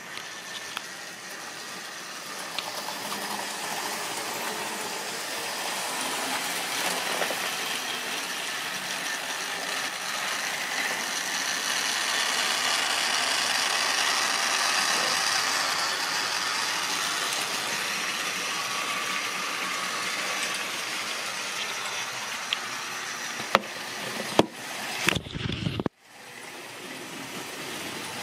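Model railway train running on sectional track: a steady rumble and whirr of its small electric motor and wheels, growing louder to about halfway as it passes close, then easing off. A few sharp clicks and a brief knock sound near the end.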